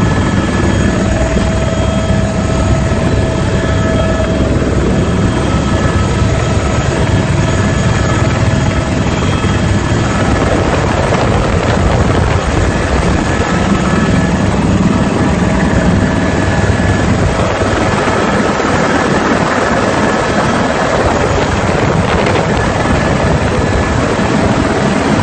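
Helicopter in flight, its rotor and turbine engine running steadily with a continuous high turbine whine over the low rotor beat.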